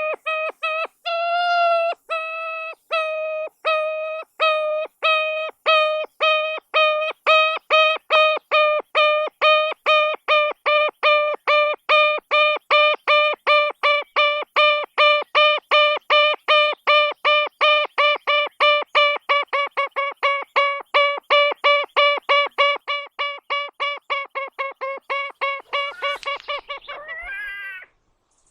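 Ruffed grouse calling: a long series of short, nasal, pitched notes, about two a second at first and speeding up steadily to four or five a second, ending in a quick rising slurred note near the end.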